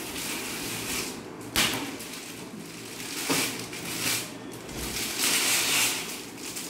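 Plastic carrier bags rustling and crinkling in bursts as packets of fireworks are handled and pulled out, with a sharp knock about one and a half seconds in and a smaller one a couple of seconds later.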